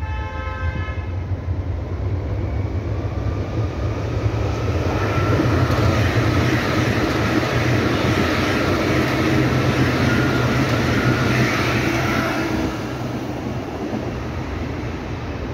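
Berlin U-Bahn train passing close by on the U2 line, its wheels running and clattering on the rails with a steady whine. It grows from about four seconds in, is loudest in the middle and fades near the end as it runs away. There is a short tone in the first second.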